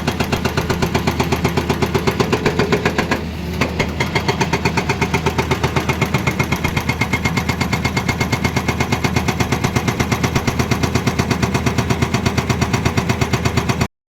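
Hydraulic breaker on an excavator hammering in a rapid, even rhythm of several blows a second over the machine's running engine. The blows pause briefly about three seconds in, then carry on until the sound cuts off suddenly near the end.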